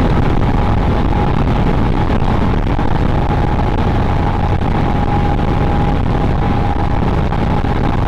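Royal Enfield Scram 411's single-cylinder engine running flat out at high speed, around 130 km/h, mixed into a steady rush of wind and road noise, with a thin steady whine throughout.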